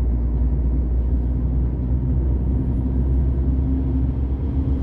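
Cab interior of a truck cruising on a motorway: a steady low rumble of the diesel engine and road noise, with a faint engine hum running through it.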